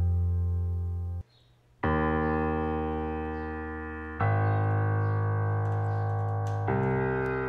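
Background music: sustained keyboard chords that fade slowly and change about every two and a half seconds, with a brief silence about a second in.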